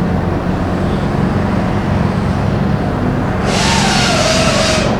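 BMW E46 engine turning over on the starter during a compression test, a steady low rumble. About three and a half seconds in, a loud hiss with a wavering whistle joins it and stops just before the end.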